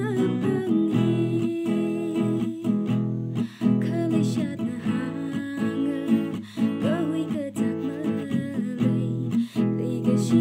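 A woman singing a melody while strumming chords on an acoustic guitar.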